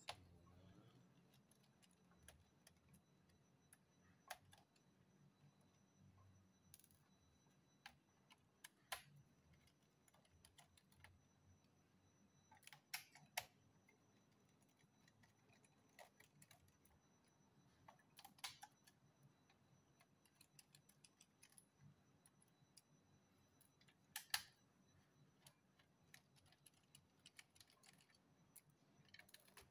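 Faint, scattered clicks and taps a few seconds apart, some in quick pairs, from a screwdriver and small screws as the many screws are taken out of the underside of an old Acer laptop.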